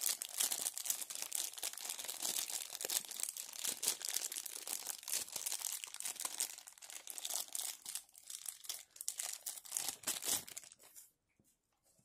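Thin clear plastic bag crinkling and rustling continuously in the hands as a small plastic figure is worked out of it, stopping suddenly about a second before the end.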